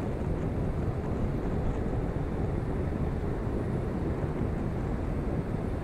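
Steady wind rush buffeting a camera microphone mounted on the outside of a car at highway speed, over the low rumble of tyres on the road.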